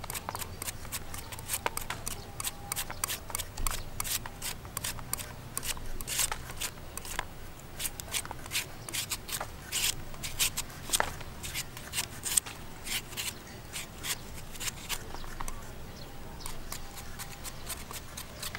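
Metal hand peeler scraping the skin off a palm fruit in quick, uneven, repeated strokes, with the shavings coming away as it goes.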